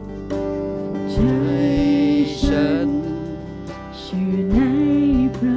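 Live worship band playing a slow song: sustained keyboard and guitar chords, with a voice coming in about a second in to sing long, held notes, and a few soft low beats underneath.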